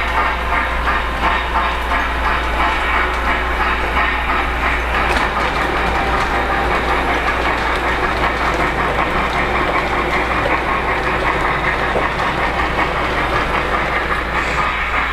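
Lionel LionChief Plus 2.0 O-gauge model Berkshire steam locomotive running steadily on the layout track, its wheels clattering over the rails along with the engine's built-in sound effects.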